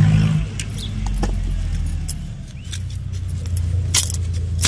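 Bangles clinking a few times, sharply, as hands pull a taro plant and work the soil, over a steady low rumble. The loudest clink comes near the end.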